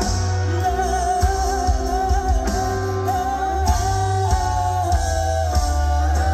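Live rock band playing, with a singer holding one long, slightly wavering note over bass, guitar and drums.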